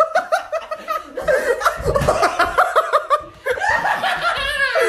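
A woman laughing hard in quick repeated high-pitched bursts, with a falling shriek near the end.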